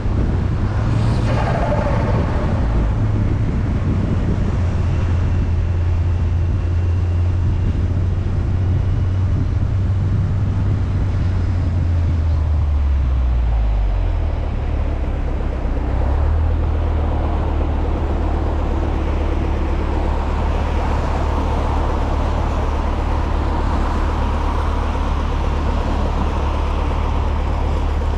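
Volkswagen Mk6 Golf R's turbocharged four-cylinder engine running while driving, a steady low drone with road noise. The engine note drops in pitch about halfway through and picks back up a couple of seconds later, and a brief rush of noise comes about a second in.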